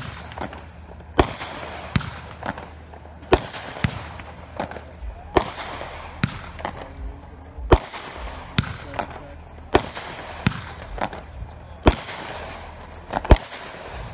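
Silken Sky 200-gram consumer fireworks cake firing shot after shot, a sharp report about every second, each break trailing off in a hiss.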